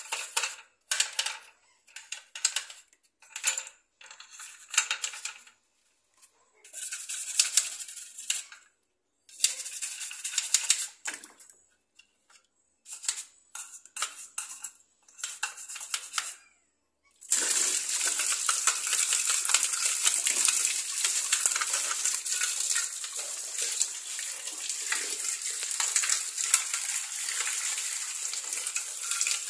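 Toothbrush scrubbing the plastic detergent dispenser of a Samsung top-loading washing machine in short bursts of strokes with pauses between them. About 17 seconds in, tap water starts pouring steadily over the dispenser and splashing into a plastic basin.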